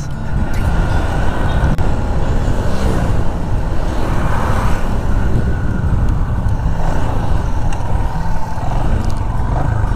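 Motorcycle engine running steadily while riding, with steady wind noise rushing over the helmet-mounted lavalier mic.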